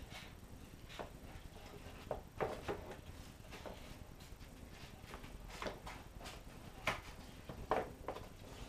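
Scissors snipping through a cardboard egg carton: several separate sharp cuts with small handling noises between them.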